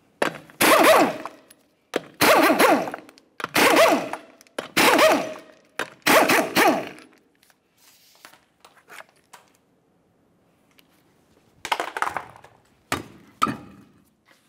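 Impact wrench rattling in five bursts of about a second each, one for each 19mm lug nut it spins off a car wheel. Light clinks follow as the loose nuts are handled, then a few knocks near the end as the hubcap and wheel come off.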